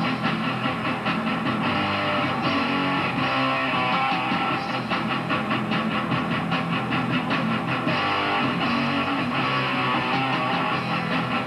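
Metal band playing live: electric guitars, bass and drums in a steady, dense passage with regular drum hits, recorded on VHS with a dull top end.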